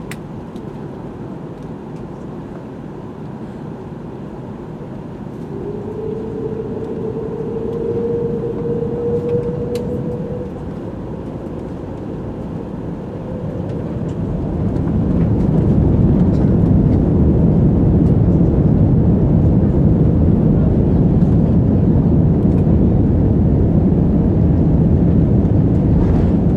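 Airbus A380 cabin noise during takeoff: a steady engine hum, with a rising engine whine for a few seconds. About halfway through, the engines spool up to takeoff thrust and the sound swells into a loud, steady low rumble.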